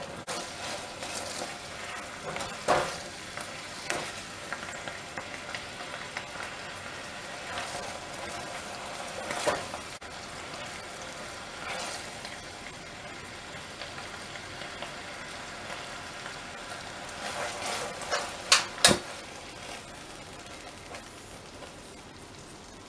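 Raisins simmering in a thick, mostly reduced sugar syrup in a stainless steel saucepan, bubbling and sizzling steadily, while a silicone spatula stirs and scrapes through them. A few sharper knocks of the spatula against the pan stand out, the loudest two close together about three-quarters of the way in.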